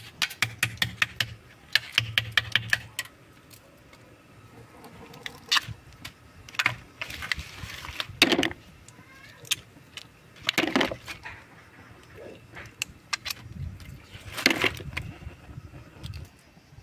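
Irregular clicks and knocks of hand food preparation in a kitchen: hard items tapping and clattering, with a few louder knocks about eight, eleven and fourteen seconds in.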